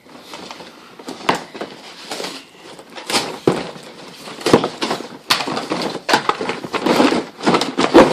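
Cardboard and plastic packaging rustling and crackling as a Nerf gun is unboxed, with many sharp clicks and knocks, busier and louder in the second half.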